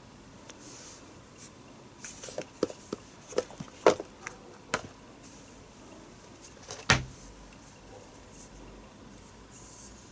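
Hands handling boxes and packaging: a quick run of light clicks and taps, then one louder knock with a dull thud, and soft rustles in between.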